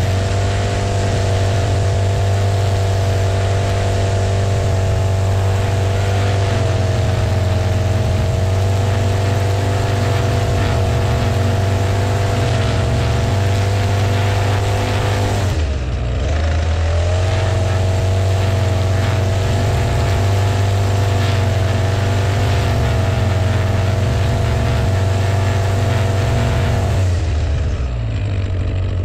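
Echo two-stroke string trimmer running at full throttle, its line cutting grass along a concrete sidewalk edge. The engine note drops briefly about halfway through as the throttle is eased off, then climbs back, and drops again near the end.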